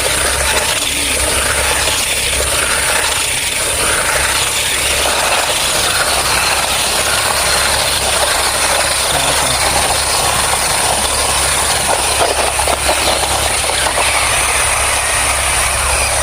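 Toy cars running continuously around the wall of a toy death-well track, making a loud, steady mechanical rumble and rattle.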